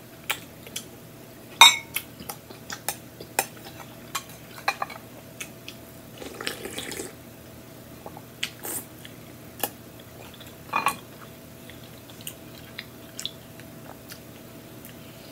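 Eating soup from a glass bowl: a plastic spoon clinks and scrapes against the glass, with wet mouth sounds of slurping and swallowing. It comes as a string of sharp, irregular clicks, the loudest about a second and a half in, with a longer slurp around six seconds in.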